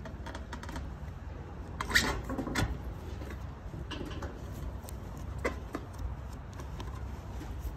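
Rubber inner seal being worked by hand into the groove of a steel hydraulic cylinder gland: scattered small squeaks and clicks of rubber against metal, loudest about two seconds in, over a steady low rumble.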